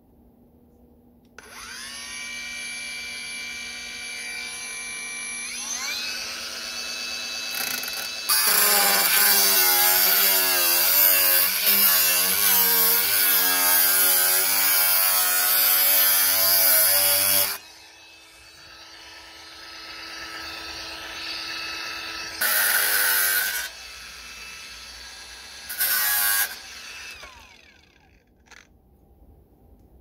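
Cordless power saw running. The motor runs with a steady whine for several seconds, then cuts under load for about nine seconds, loud and rasping. After a quieter spell it makes two short loud cuts.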